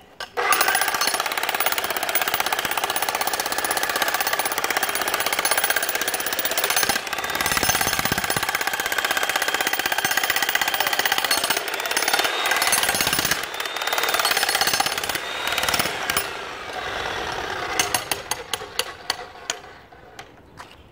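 Corded 120-volt electric jackhammer chiselling into a buried concrete footing: rapid, loud, continuous hammering that starts just after the beginning, then turns weaker and choppy with separate blows over the last few seconds before stopping.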